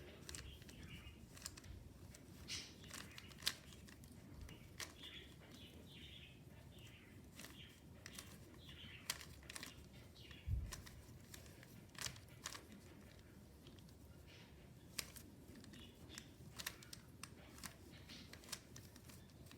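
Faint, irregular clicks and clacks of a 3x3 Rubik's cube's layers being turned by hand, with a soft low thump about halfway through.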